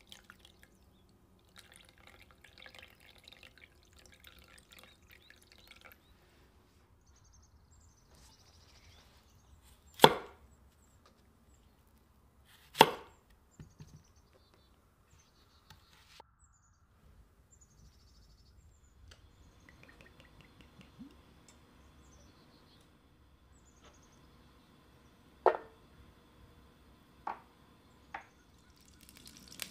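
Water poured from a glass into a glass baking dish of seasoned meat for a few seconds, then two loud, sharp knocks of whole onions set down on a wooden cutting board. Near the end come three lighter knocks.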